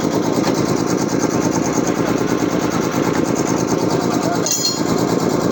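A new 5 hp Puma high-pressure air compressor running steadily under test, a dense, rapid mechanical pumping clatter. About four and a half seconds in there is a brief high-pitched sound over it.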